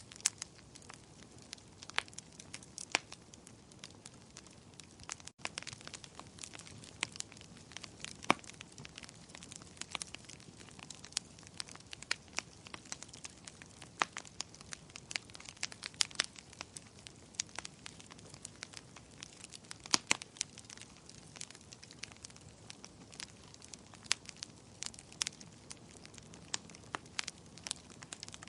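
Fire in a fireplace crackling: sharp, irregular pops and snaps over a low steady hiss.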